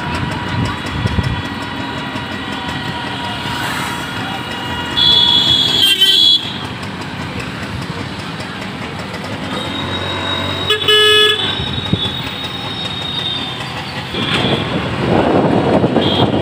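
Busy city road traffic with vehicle horns honking over a steady rumble of engines and tyres. A loud horn blast comes about five seconds in and lasts just over a second, a second short blast follows around eleven seconds, and another sounds near the end.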